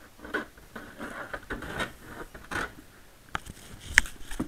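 Velomobile hood being handled and swung on its homemade hinge from inside the shell, with a series of short scrapes and rubs of the hood against the shell. A small click a little over three seconds in, then a sharp, louder click at about four seconds.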